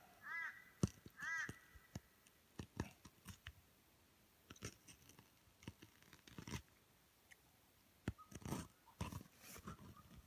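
A knife slitting open a red deer's belly and hands working the stomach loose: scattered soft wet clicks and rustles. A bird calls twice, about a second apart, near the start.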